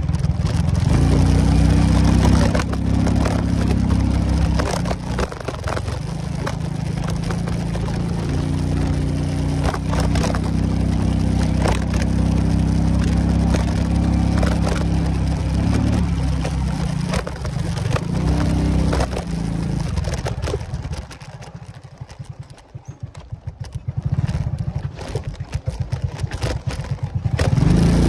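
Motorcycle engine running at low speed over a rough dirt track, its pitch stepping up and down with the throttle, with crunching and frequent clicks and knocks from the tyres on stones and ruts. About three quarters of the way through the engine drops low and quiet for several seconds, then picks up again near the end.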